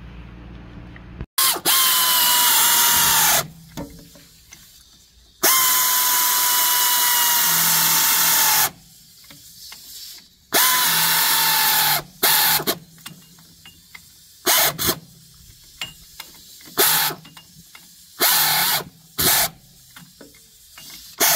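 Power impact wrench run in bursts on a bolt at the base of a tractor's engine, a whine over a loud hammering rattle: three long runs of two to three seconds in the first half, then a string of short bursts.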